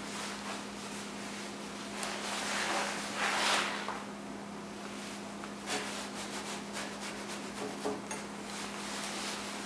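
Chisel paring wet green white pine by hand: scraping, shaving strokes against the grain, the longest and loudest about two to three and a half seconds in, then a few short sharp cuts. A steady low hum runs underneath.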